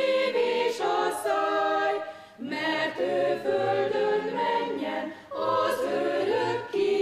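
Small mixed choir of women's and men's voices singing together, in phrases broken by short pauses about two and a half and five seconds in.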